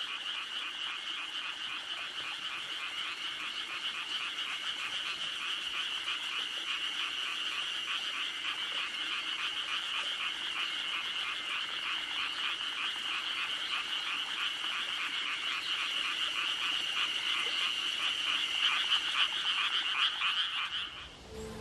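A dense, steady chorus of small animals calling in rapid pulsing trills. It fades out and stops near the end.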